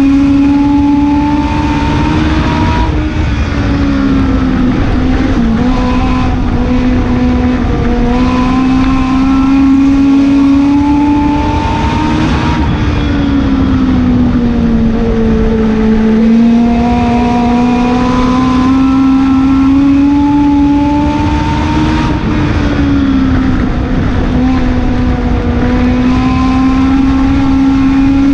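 Legend race car's Yamaha four-cylinder motorcycle engine running hard, heard from inside the cockpit. Its pitch drops and climbs back three times, about every ten seconds, as the car laps the dirt oval.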